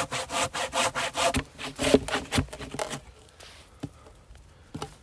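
A hand saw cutting through a firewood log in quick, even back-and-forth strokes, about three to four a second. It stops about three seconds in, and a couple of light knocks follow.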